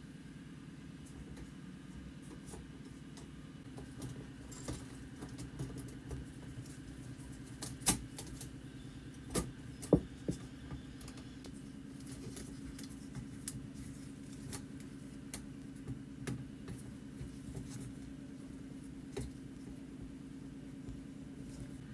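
A small motor hums steadily under scattered clicks and taps, with two sharper knocks about eight and ten seconds in.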